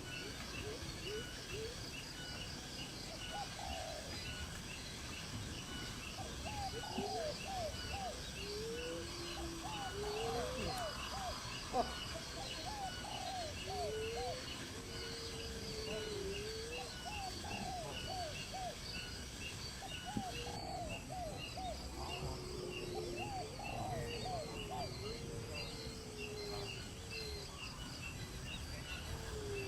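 Bird calls: runs of several short, low, falling notes and a few longer gliding calls. Behind them is a steady, rhythmic insect chirping at about three chirps a second.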